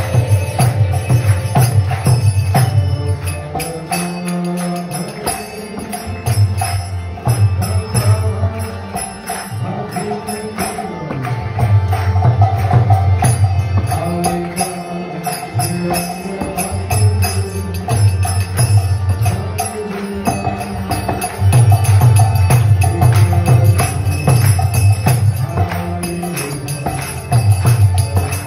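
Devotional kirtan: a harmonium plays sustained chords under a sung mantra, with small hand cymbals ringing a steady beat. The singing comes in phrases with short breaks between them.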